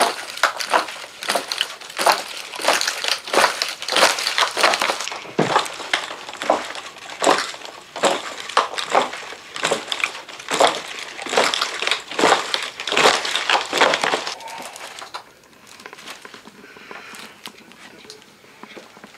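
A dense run of irregular crunching and crumpling noises, a few a second, that stops about fourteen seconds in, leaving only faint scattered rustles.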